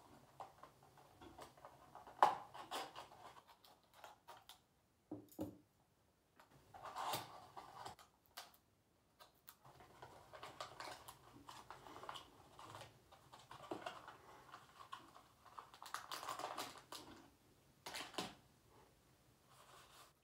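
A small cardboard box and its wrapping being handled and opened by hand: irregular crinkling, scraping and light clicks in short bursts, with the sharpest click about two seconds in.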